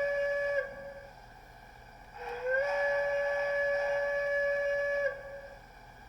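Recorded steam-whistle sound from the DCC sound decoder of a Bachmann Plus 4-8-4 Niagara model locomotive, played through its small speaker. A blast cuts off about half a second in. A second, longer blast of about three seconds follows; it scoops up in pitch as it starts and trails off briefly when it stops.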